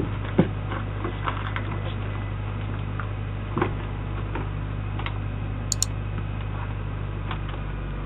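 Doorbell security camera's microphone pickup: a steady low hum and hiss with a few faint scattered clicks and knocks, and a brief sharp double click a little past the middle.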